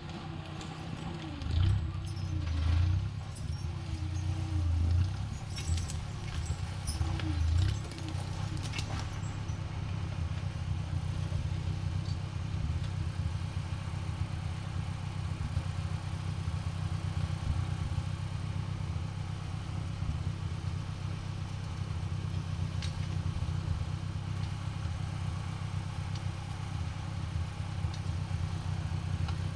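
An engine running, revving up and down a few times in the first several seconds, then running steadily at an even speed.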